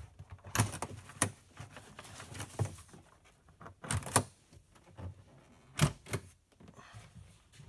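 Metal draw latches on the joint between a sectional plastic kayak's hull sections being worked open by hand, giving a string of sharp clicks and clacks. The loudest come in pairs about four and six seconds in.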